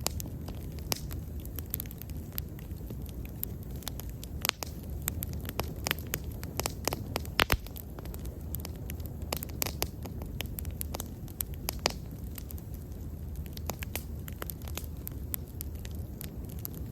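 Wood bonfire burning, with frequent irregular crackles and sharp pops over a low, steady rumble of the flames; a few louder pops come about halfway through.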